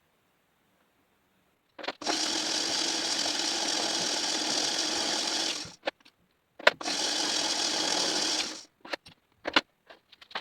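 A small power tool running in two bursts, the first about four seconds long from about two seconds in, the second about two seconds long, followed by a few short clicks.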